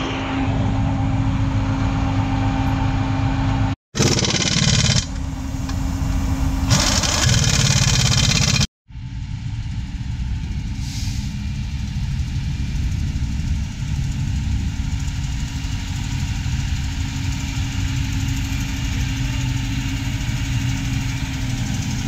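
Heavy diesel engine running steadily. It is heard in three stretches cut off abruptly about four and nine seconds in, with more hiss in the middle stretch.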